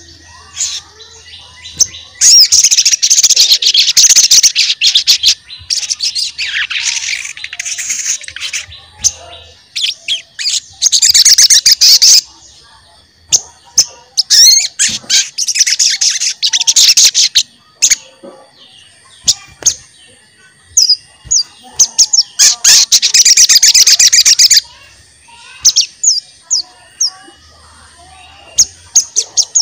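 A sogon songbird singing in its 'cuit cuit' manner: about five loud bouts of rapid, high chirping, each a few seconds long, with scattered single chirps in the gaps between them. This is the full 'gacor' song that bird-keepers play to provoke other sogon into singing.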